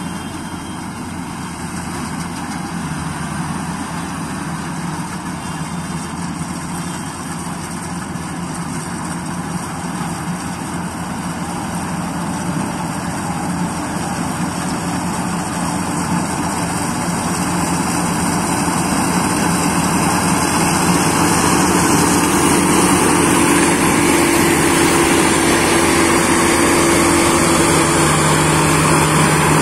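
GAM tracked rice combine harvester at work, its diesel engine and threshing machinery running steadily with a low hum. It grows louder over the middle stretch as the machine comes up close, then holds at that level.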